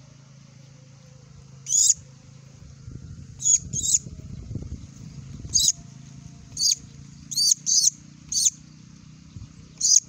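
A weaver nestling held in the hand giving short, shrill, high-pitched cheeps, about nine in ten seconds at irregular intervals, some in quick pairs.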